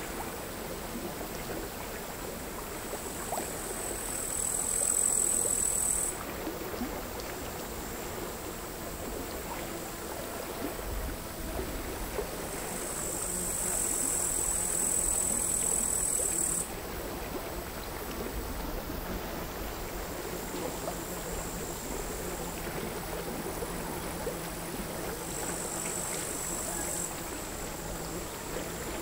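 Crickets singing a high, buzzing song in three louder spells of a few seconds each, the longest in the middle, each cutting off suddenly. Behind them, quiet sea waves lap irregularly against the shore.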